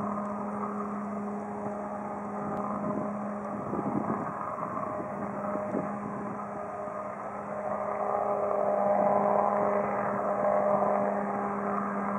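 Piaggio P180 Avanti's twin pusher turboprops droning on approach: a steady low buzz with higher tones above it, growing louder about two-thirds of the way through as the aircraft comes closer.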